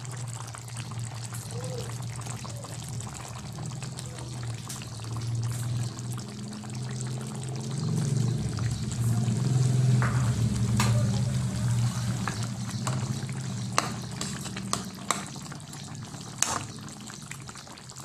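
Chicken and tomato sauce simmering and bubbling in a pan over a steady low hum, which swells in the middle. A few sharp clicks of a spatula against the pan come in the second half.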